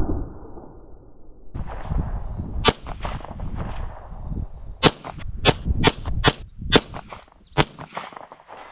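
A Chambers Custom 9mm pistol fired about seven times in quick, uneven succession, each shot a short sharp crack.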